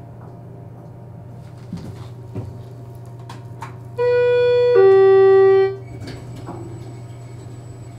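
Electronic two-tone doorbell chime: a sustained higher note then a lower one, together under two seconds, about halfway through. Under it a low steady hum, with a few faint knocks before the chime.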